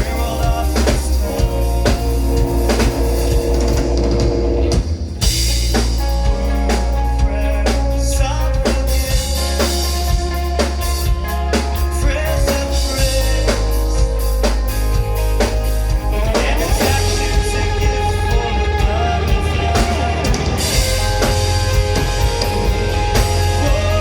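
Live rock band playing, with a drum kit beating steadily over sustained guitar and bass. The band drops out briefly about five seconds in.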